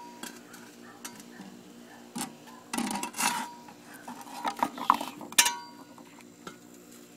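Metal shovel blade scraping and clinking against a concrete pool deck and a plastic pool skimmer lid as the lid is pried up and off. A few sharp knocks, the loudest about five seconds in, over a faint steady hum.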